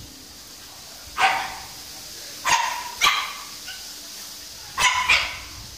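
Small dogs barking as they scuffle together: five sharp, high yaps, one about a second in, a pair in the middle and a pair near the end.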